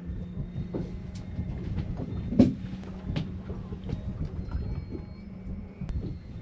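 Boat engine running with a steady low hum, under irregular knocks and clacks from the boat, the loudest a sharp hit about two and a half seconds in.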